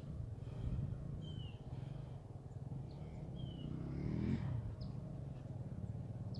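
Small dirt bike engine running at a distance, revving up once about four seconds in.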